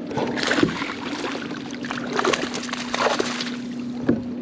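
Water splashing and sloshing beside a kayak in irregular bursts as a hooked bass thrashes near the surface, over a steady low hum.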